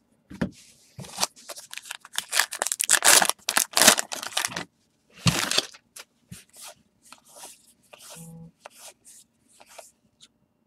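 Baseball trading cards being handled: stiff card stock sliding, scraping and flicking against itself in quick scratchy strokes, busiest in the first half, then a few lighter ticks.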